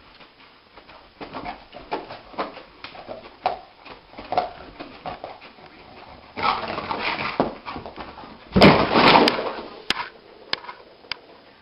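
A dog whimpering and yipping in its sleep while dreaming, a string of short sounds, with two louder, longer outbursts about six and nine seconds in.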